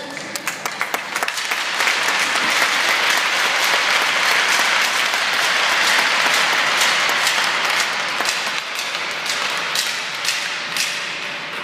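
Crowd applause, many hands clapping, swelling soon after the start and thinning out toward the end.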